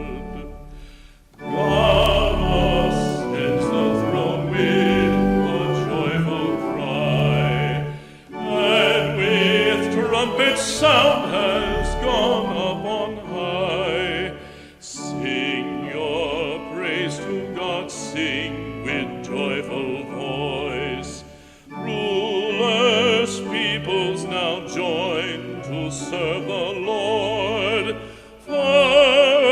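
Church music: classical-style singing with a wide vibrato over sustained low accompaniment. It comes in long phrases, each broken off by a short pause about every six or seven seconds.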